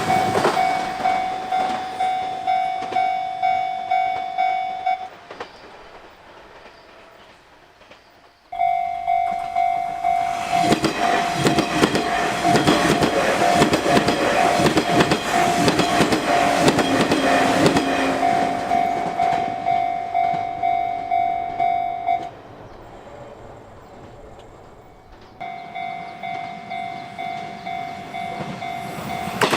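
Japanese railroad crossing warning bell clanging steadily at about two strikes a second. A train passes in the middle with rumbling, clattering wheels. The bell breaks off abruptly twice and starts again.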